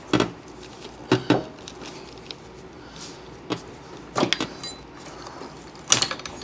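Metal fuel line and its plastic fittings being handled and worked loose by gloved hands: scattered sharp clicks and clacks, a pair about a second in, a small cluster past the four-second mark and the loudest cluster near the end.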